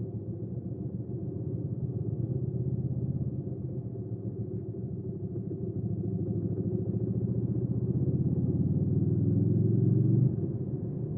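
Hyosung GV300S Aquila 300's V-twin engine running on the road, its note building steadily over about ten seconds, then falling off abruptly near the end.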